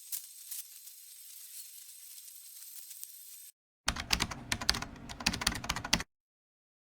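A rapid, irregular run of sharp clicks, like typing on a keyboard, lasting about two seconds in the second half and starting and stopping abruptly. Before it there is only faint hiss with a few light ticks.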